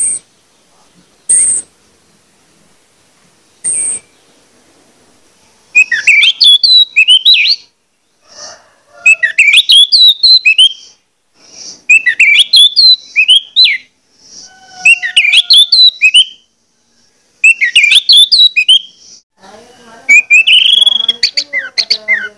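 Orange-headed thrush singing: three short, thin high calls in the first four seconds, then a run of six quick phrases of rising and falling whistled notes, one every two to three seconds. This is full, persistent male song of the kind used to set off other orange-headed thrushes.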